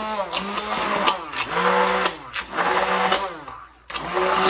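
Electric immersion (stick) blender motor running in thick mayonnaise, its pitch repeatedly sagging and picking up again as it is worked through the emulsion, with scattered clicks. It cuts out briefly a little after three seconds and starts again near four seconds.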